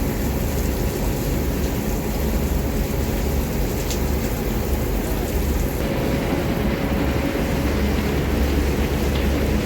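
Heavy diesel engine running steadily, a constant low rumble with an even hiss above it.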